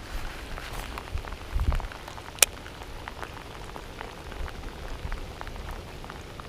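Heavy rain falling on creek water and gear, heard as a steady hiss with many separate drops ticking. A single sharp click stands out about two and a half seconds in.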